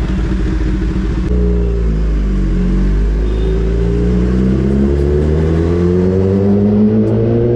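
Kawasaki ZX-10R's inline-four engine pulling away with a pillion aboard: a rough low-rev note for about a second, then the engine note climbs slowly and steadily as the bike accelerates.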